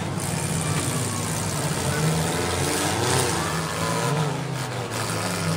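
Several demolition derby cars' engines running and revving at once, with crowd chatter mixed in.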